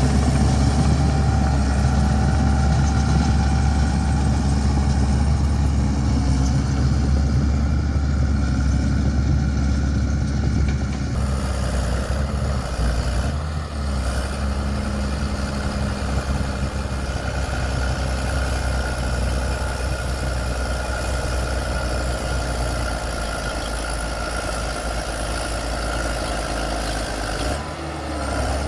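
Bulldozer's heavy diesel engine running steadily and low-pitched while working soil. The sound shifts abruptly about eleven seconds in and again near the end.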